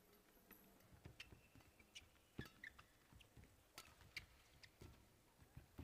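Near silence in a badminton hall, broken by a few faint scattered taps and short squeaks from players' shoes on the court mat.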